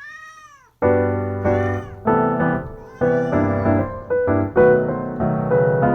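A domestic cat meows, one call rising then falling in pitch; about a second in, piano background music starts, with a couple more meows over it.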